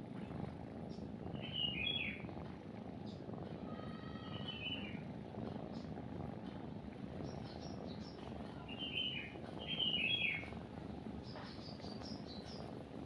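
Small birds chirping in short phrases several times, with a quicker run of higher chirps near the end, over a cat's continuous low purring.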